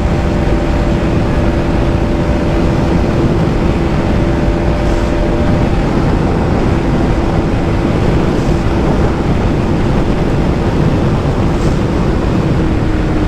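KTM Duke 200's single-cylinder engine held at high revs at top speed in sixth gear, around 134 km/h near its rev limiter, its note steady, under heavy wind rush.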